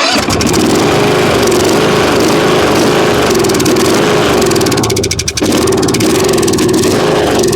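Kohler Courage riding-mower engine cranking over and firing while a spray is fed into the intake to flush old gas, its pitch wavering regularly, with a short break about five seconds in. It does not catch and run on its own: a fuel problem in the carburetor.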